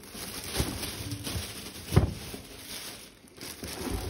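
Hands opening a small accessories box among sink packaging: rustling and scraping handling noise with a few sharp knocks, the loudest about two seconds in.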